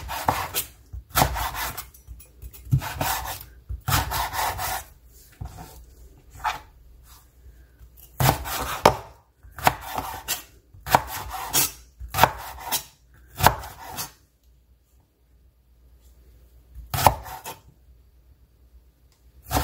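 A large kitchen knife chops firm, peeled watermelon rind into cubes on a wooden cutting board: a string of knocks as the blade goes through the rind onto the board, about one a second. It pauses for a few seconds near the end before one last cut.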